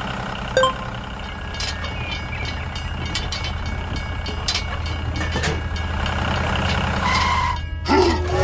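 Heavy machinery engine running steadily with scattered clicks and clanks. A short beep sounds about seven seconds in.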